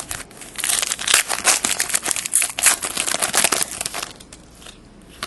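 Wrapper of a 2011 Panini Elite football card pack crinkling and tearing as the pack is opened, a dense crackle of a few seconds that stops about four seconds in.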